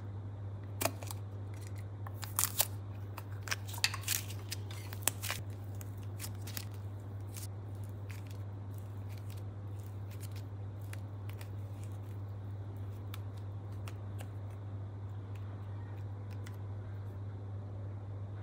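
Sharp clicks and snaps of a hard plastic ball-shaped container being handled and opened, clustered in the first five seconds or so. After that come only faint soft handling ticks as the slime is stretched, over a steady low hum.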